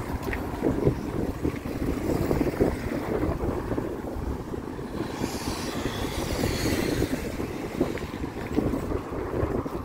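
Wind buffeting the microphone, a steady low rumble, with a brief higher hiss about halfway through.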